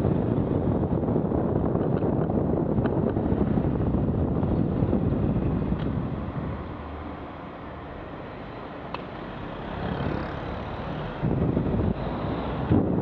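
Wind rumbling on a cyclist's helmet-camera microphone while riding in traffic. It eases off for a few seconds about halfway through as the bike slows at the lights, then picks up again near the end.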